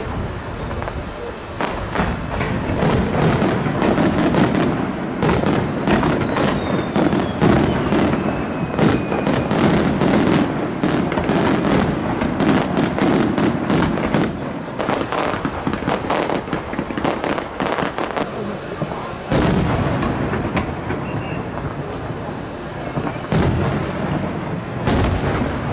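A fireworks display: aerial shells bursting in a rapid barrage of bangs and crackles, densest in the first half, then a few louder single bangs in the second half.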